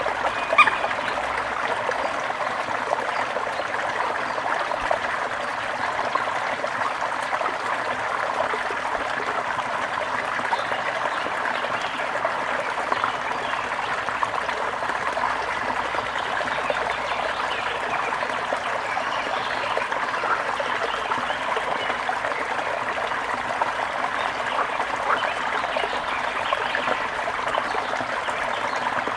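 Shallow water trickling and babbling steadily over stones, with a few short bird chirps over it, one of them sharper just after the start.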